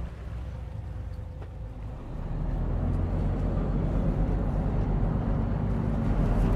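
Fishing boat's motor running with water rushing past the hull, a steady low noise that grows louder about two seconds in.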